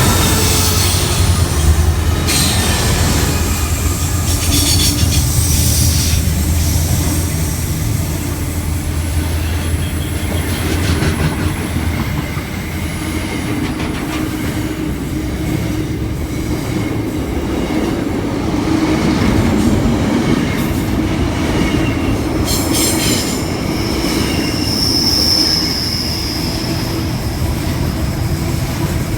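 Sydney Trains OSCAR (H-set) electric passenger train moving along the platform, a continuous rumble with wheel clicks, and a brief high wheel squeal about 25 seconds in.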